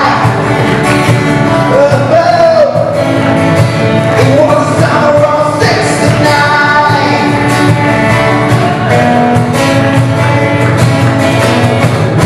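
Live band playing a rock song: acoustic guitars strumming, electric bass and a cajon under a male lead singer. The singing carries the first half, then the instruments go on with longer held chords.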